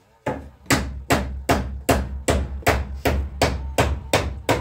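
A spoon knocking against a mixing bowl in a steady rhythm, about two and a half strikes a second, as cornmeal cake batter is stirred.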